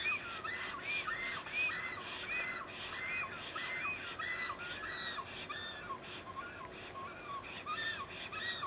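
A pair of black storks giving their greeting call at the nest: a long, steady series of short, arched whistled notes, about two or three a second.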